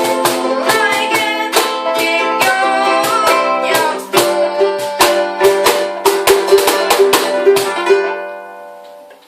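Ukulele strumming chords in a steady rhythm as the song ends. About eight seconds in the strumming stops and the final chord rings and fades away.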